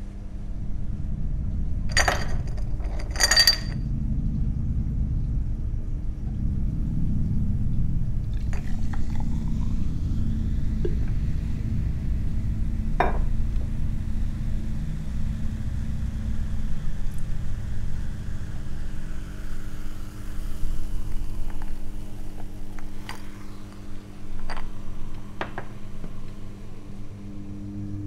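Glassware clinking: a glass and a glass bottle set down with ringing clinks, twice about a second apart near the start, with a few fainter taps later. A low steady rumble runs beneath.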